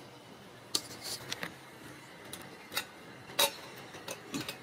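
Kittens eating from small metal food bowls: irregular sharp clicks and clinks of teeth and food against the metal, the loudest about three and a half seconds in.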